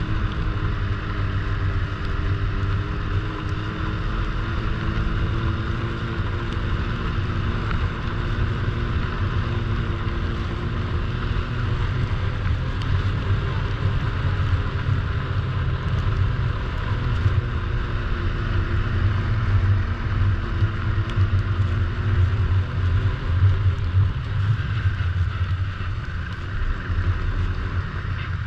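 Snowmobile engine running steadily under way, its pitch drifting gently up and down as the throttle eases and opens, over a low rumble.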